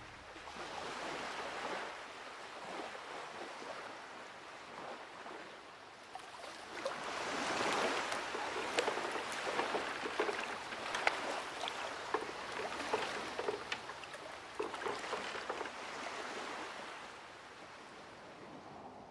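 Sea water washing and splashing. It swells louder about a third of the way in, with many small splashes and clicks, then fades near the end.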